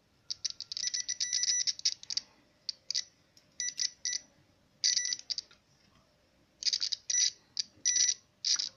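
Digital multimeter's continuity buzzer beeping in broken, stuttering bursts as the test probes make and lose contact; the beep signals a closed circuit, and the part tests fine.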